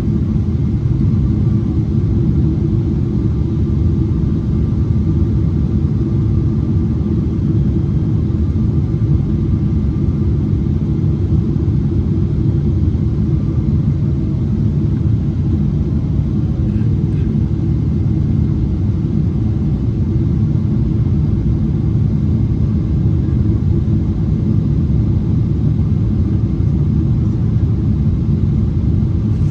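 Steady low cabin roar inside a Boeing 777-300ER on approach, from its GE90-115B engines and the airflow past the fuselage, with a faint steady whine above it.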